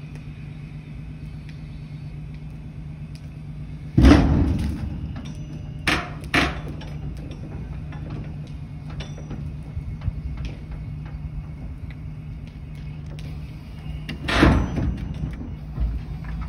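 Forklift moving and lowering a steel shipping container: a steady low motor hum, with loud bangs about four seconds in, two quicker knocks a couple of seconds later, and another bang near the end as the container comes down.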